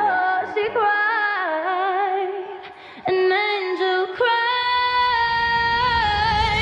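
Music track: a woman's voice singing long, wavering held notes over sparse accompaniment, fading briefly just before the halfway point and ending on one long held note.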